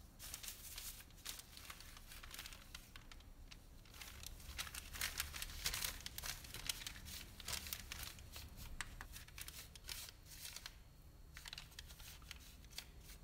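A knife spreading Nutella over a rolled disc of bread dough on parchment paper, the paper crinkling and rustling in quick, irregular scrapes, with brief pauses twice.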